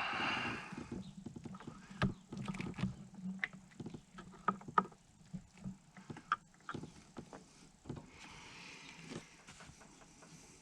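Scattered clicks, clinks and knocks of hand tools and engine parts being handled during work on a snowmobile engine, with a short hissing rush at the start and a fainter one about eight seconds in.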